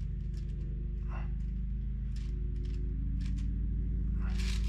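Steady low drone of a lawnmower engine running outside. Over it come a few short scrapes and taps of hands and tools on clay and its wooden base, the loudest near the end.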